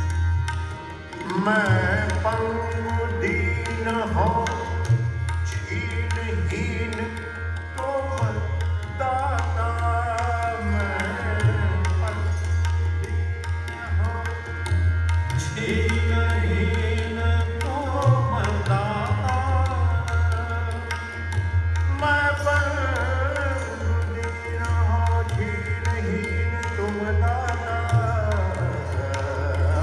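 Hindustani classical bhajan performance: a male voice sings gliding, ornamented melodic lines, accompanied by tabla and harmonium.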